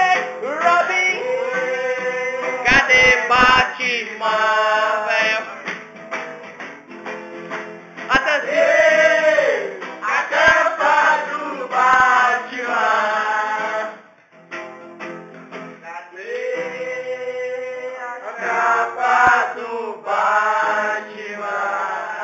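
Men singing a song together, accompanied by an acoustic guitar, with a few low thumps about three seconds in.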